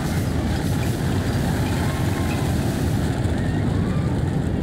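Loud, steady low rumble of a restaurant's simulated magnitude-8 earthquake as it shakes the dining room.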